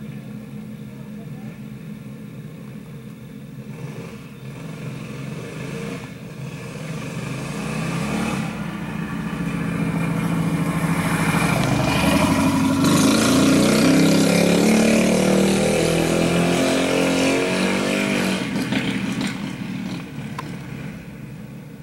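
Several racing go-kart engines running hard on a dirt oval, their pitches rising and falling with throttle; the sound swells to its loudest as the pack passes close around the middle and then fades away near the end.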